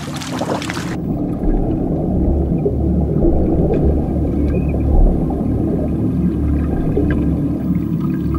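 Surface water noise for about a second, then a sudden switch to underwater sound: a muffled, low rumbling wash of water with all the high sounds gone.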